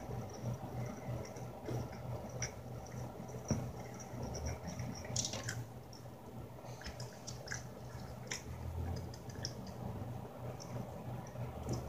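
Wet chewing and mouth sounds of a person eating pizza and chicken wings, with scattered small smacks and clicks over a low steady hum.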